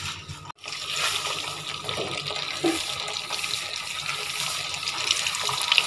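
Batter-coated cauliflower florets sizzling as they deep-fry in hot oil, a steady crackling hiss. It cuts out for a moment about half a second in, then carries on.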